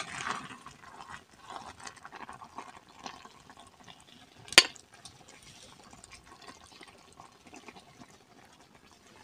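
Metal tongs scooping saucy izote flower and egg out of a metal pot onto a plate, with soft wet scraping and small faint clicks. One sharp clink about four and a half seconds in.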